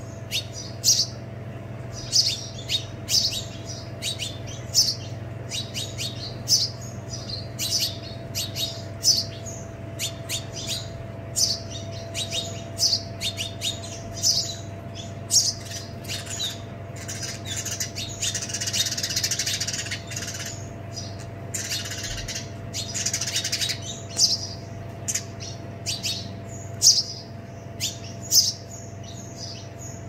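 House sparrows chirping, a fledgling begging while an adult male feeds it: repeated short, sharp chirps all through, with two longer stretches of denser, scratchy chatter a little past halfway. A steady low hum runs underneath.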